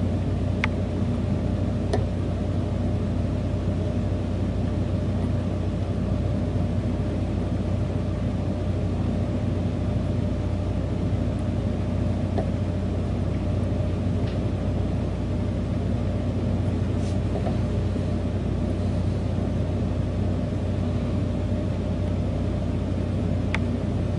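A steady low hum under an even background noise, with a few faint ticks.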